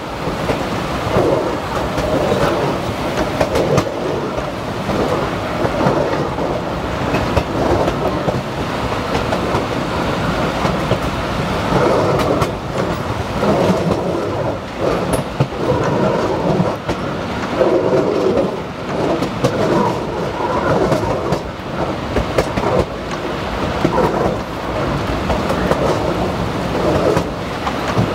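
Narrow-gauge passenger car rolling along the track, heard from its open rear platform: a steady rumble with irregular clattering of the wheels over the rails.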